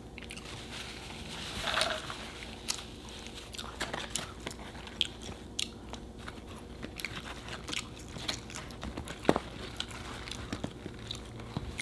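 A person chewing and biting a burger and fries close to the microphone: many small, irregular, sharp mouth clicks, with a louder bite a little under two seconds in.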